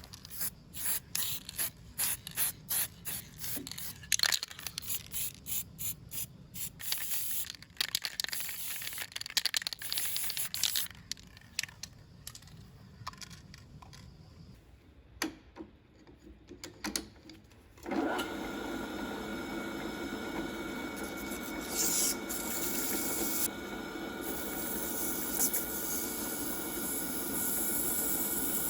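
Repeated hand rubbing or scrubbing strokes on a workpiece, about two a second. About 18 seconds in, a small electric power tool starts and runs steadily to the end.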